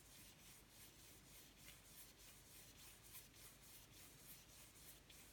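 Faint, irregular swishes of a paintbrush rubbed back and forth over a canvas, blending the paint into a smooth misty area.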